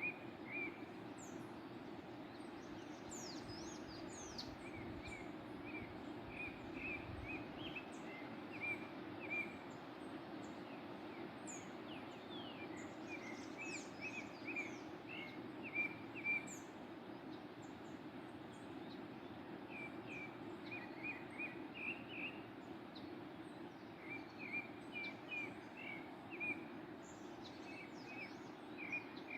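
Steady rush of a waterfall with birds singing over it: clusters of quick, repeated chirps and short, high whistled notes coming and going.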